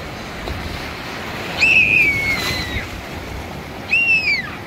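Ocean surf washing steadily around a wader standing in the shallows, with wind on the microphone. Two high-pitched falling cries cut through, about a second and a half in and again near the end.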